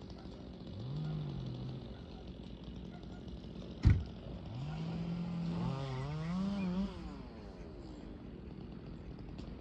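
A small engine revving in short goes, its pitch rising, holding and falling: briefly about a second in, and longer from just before the middle. A single sharp knock just before halfway is the loudest sound.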